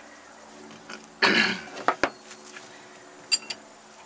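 Hand tools and bolts clinking against the metal of a Sherp's brake caliper mounting: a short rasping burst about a second in, then a few sharp clicks, the last two ringing metallically.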